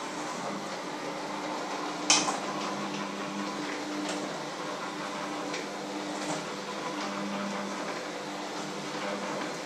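A steady low hum runs throughout, with one sharp clack of kitchen utensils about two seconds in and a few lighter clicks and clinks after it.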